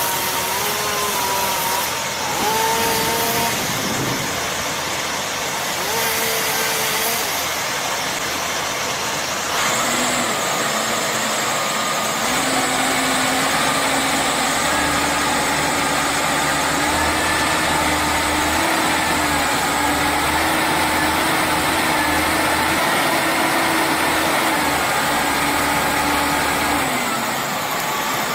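A motor engine running steadily, its pitch shifting up and down. About ten seconds in the sound changes abruptly to a steadier, deeper running note that holds until near the end.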